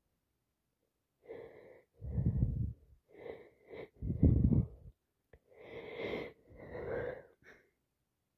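Congested, wheezy breathing and sniffing from a person with a heavy head cold, in a run of short noisy breaths. The loudest, deepest breaths come about two and four seconds in.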